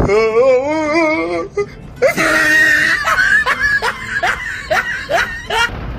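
A man's voice making a wavering, whining sound, then laughing in a quick run of short bursts.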